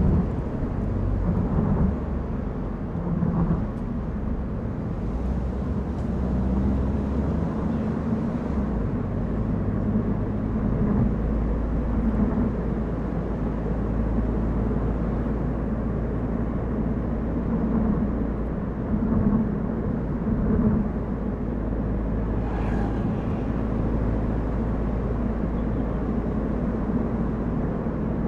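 Car driving along: steady low rumble of engine and tyres on the road.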